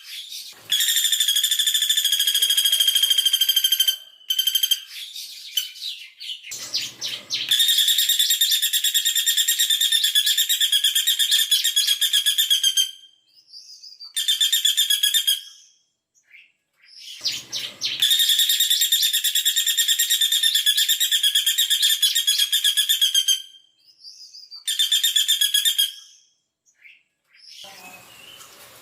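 Female caladi bawang woodpecker giving long, very fast, even rattling trills of 'tembakan' calls, five runs of one to five seconds with short gaps between. Two brief low knocks fall in the gaps.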